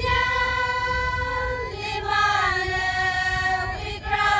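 A group of high voices singing in unison, holding long drawn-out notes: one of about a second and a half, then a lower one of about two seconds. A low rumble runs underneath.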